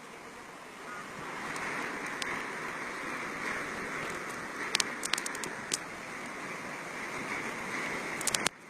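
Steady rushing noise of a typhoon's wind and water, growing louder about a second in, with a few sharp clicks about halfway through and again near the end; it cuts off suddenly just before the end.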